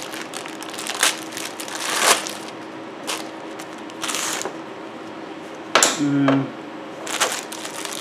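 Clear plastic packaging crinkling and rustling in bursts as a DC water heater element is unwrapped and handled, with a few sharper knocks.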